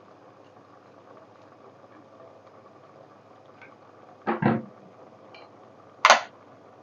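Kitchen utensils knocking beside a cooking pot: two quick knocks about four seconds in, then a sharp clink a couple of seconds later, over a faint steady hum.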